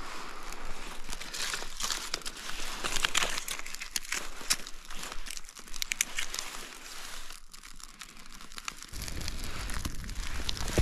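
Birch bark and dry kindling crackling as a campfire catches: a dense run of sharp crackles and snaps. Near the end a low rumble comes in as the fire burns up into large flames.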